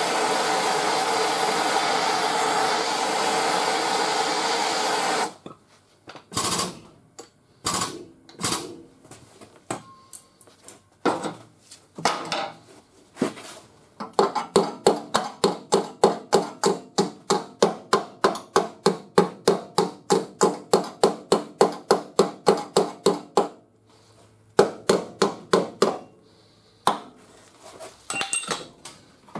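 Hand propane torch flame hissing steadily for about five seconds as it heats crinkled sheet-metal body panel to loosen it, then cutting off. A body hammer then taps the steel panel: scattered blows at first, then a fast, even run of about four blows a second, and a few more near the end.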